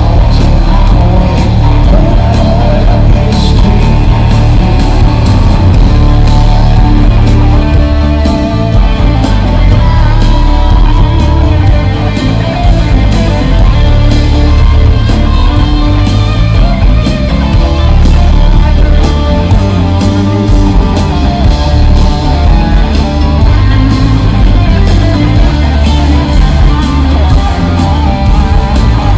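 Live rock band playing loudly and continuously: electric guitar over bass guitar and drums, in an instrumental jam passage with no singing.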